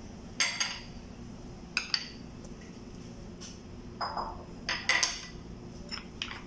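Small white ceramic dishes clinking and scraping against each other and the rim of a salad bowl as chopped vegetables are scraped and tipped into the bowl: a series of short clinks and scrapes in small clusters, the busiest near the middle.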